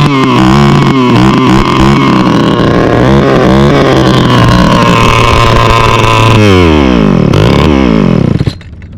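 Small two-stroke string trimmer engine running at high revs with its head bare of trimmer line, which makes it a little loud. The revs swing up and down in the first few seconds, then slide down about six and a half seconds in, and the sound drops away sharply near the end.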